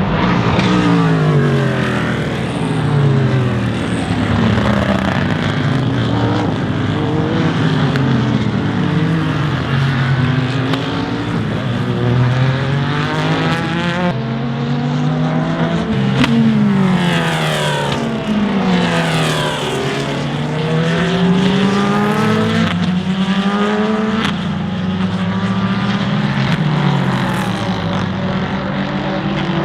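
Sports-prototype and GT race car engines at racing speed, several cars passing one after another and overlapping. Each engine note falls in pitch as the car goes by, and the notes climb again as the drivers accelerate through the gears.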